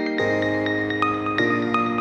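Background music: short bright melody notes over held chords that change twice.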